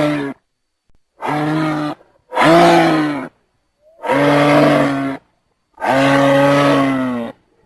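Giraffe calling: low, steady-pitched calls about a second long with short silent gaps between them. The end of one call is followed by four more.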